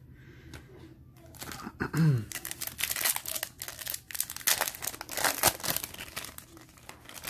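Foil wrapper of a Bowman Chrome baseball card pack crinkling and tearing as it is ripped open by hand, a quick run of crackles lasting a few seconds. A brief vocal murmur comes just before the tearing starts, about two seconds in.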